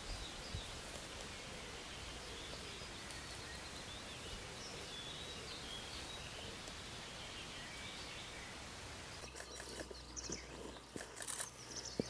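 Quiet outdoor ambience: a steady background hiss with faint, scattered birdsong. About nine seconds in, the sound changes to a low hum with light clicks and rustles.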